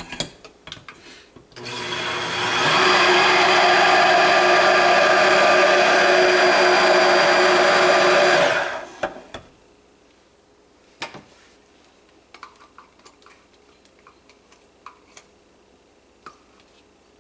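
Stick (immersion) blender running in a crock pot for about seven seconds, blending warm milk into melted oils and stearic acid. It comes up to speed over the first second and then stops. It is followed by a few light clicks.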